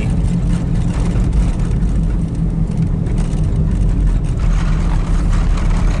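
Steady low rumble of a car's engine and tyres heard from inside the cabin while driving over a rough, snow-covered road, with the car's body squeaking over the bumps.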